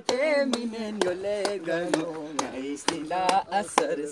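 A song: a man's singing voice over a steady, sharp percussive beat of about two strokes a second.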